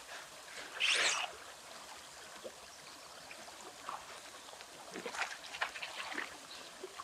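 Water splashing in the river shallows as a small rainbow trout thrashes by a landing net: one sharp splash about a second in, then soft trickling and a few small splashes near the end.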